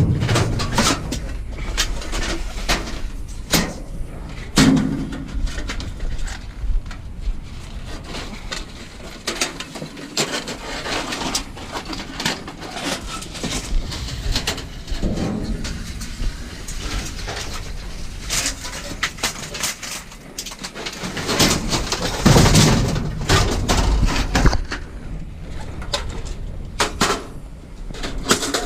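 Scattered knocks and clatter of scrap being pulled out of a trash pile and handled, with louder bouts of handling noise about a sixth of the way in, around the middle and again later on.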